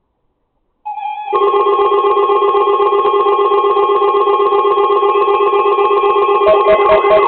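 A loud electronic alarm tone, bell-like and rapidly pulsing, with several pitches sounding together. It starts about a second in after a brief steady tone. Near the end a second tone beeping on and off about four times a second joins it.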